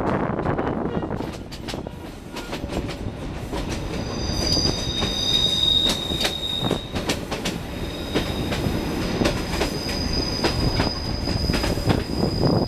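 Passenger train running over jointed track, its wheels clicking over rail joints, with a high-pitched wheel squeal starting about four seconds in, breaking off briefly and returning until near the end, typical of steel wheels on a tight curve.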